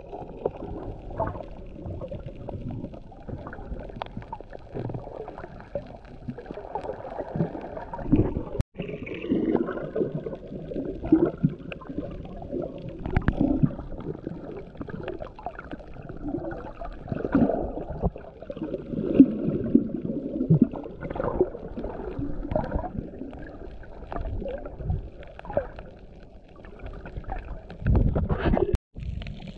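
Muffled underwater sound picked up by a camera held under the surface: water sloshing and gurgling, with scattered small knocks and crackles. It cuts out briefly twice.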